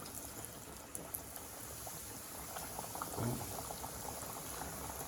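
Two flour-and-cornstarch-coated chicken breast pieces deep-frying in hot oil, just lowered in: a steady sizzle with fine crackling.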